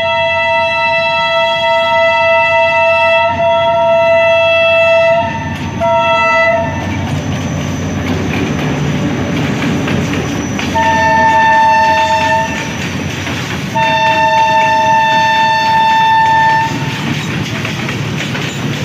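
A Pakistan Railways HGMU-30 diesel-electric locomotive sounds its multi-tone horn close by. There is one long blast of about five seconds, then a short blast, and two more blasts of about two and three seconds while the locomotive's engine rumbles past. Near the end, loaded freight hopper wagons roll by with a steady clickety-clack.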